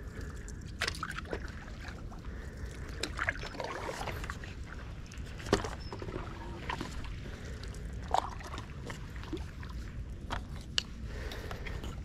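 Stand-up paddleboard paddle working calm canal water: the blade dipping in, with drips and small splashes and soft sloshing. The sharpest splashes come about halfway through and again about two-thirds in.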